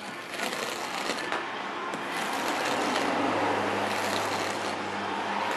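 Razor-blade scraper scraping paint overspray off a glossy car surface: a continuous rough scraping that grows somewhat louder partway through.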